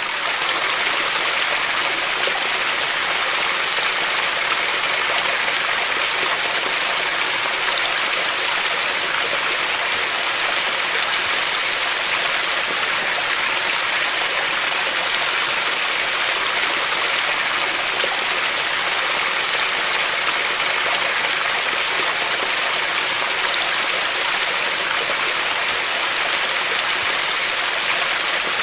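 Swollen, muddy river running fast and turbulent: a steady, even rush of water.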